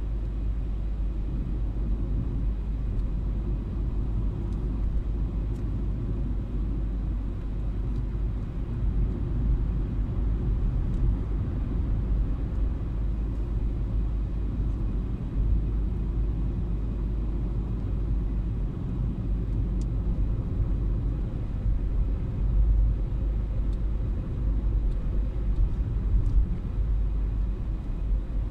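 Steady low rumble of a car driving along an open road, heard from inside the cabin.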